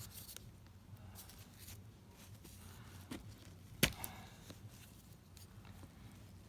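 Faint clicks and scrapes of small plastic and metal parts of a broken multi tool being handled and pressed together, with one sharp click about four seconds in.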